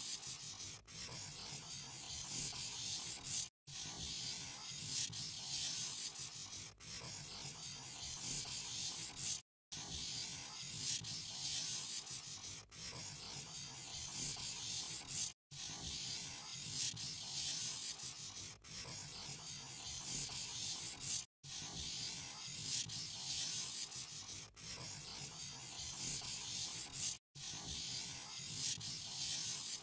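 Scratchy rubbing of a pen drawing on paper, a looped clip that breaks off for a moment about every six seconds.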